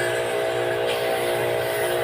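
Electric pressure washer running for aircon cleaning: a steady motor hum with the hiss of the water jet.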